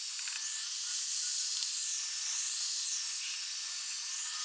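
Handheld electric heat gun running: a steady hiss of its fan and hot air, heating a rubber window seal to soften it.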